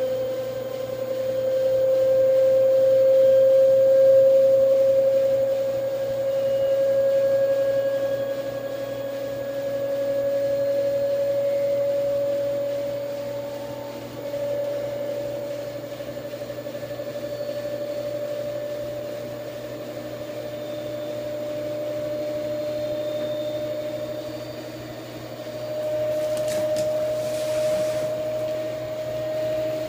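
LG washing machine on its spin cycle, giving a steady whine that creeps slowly up in pitch; this whine is the new weird noise the machine makes on spin.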